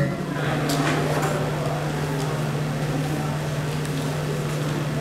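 A steady low hum under faint room noise, with a few soft clicks, as the music cuts off.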